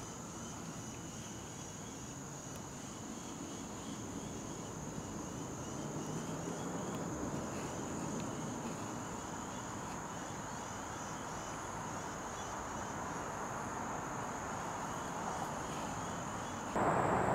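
Steady high-pitched drone of an insect chorus over a soft background hiss. In the last half second a louder rush of noise cuts in suddenly.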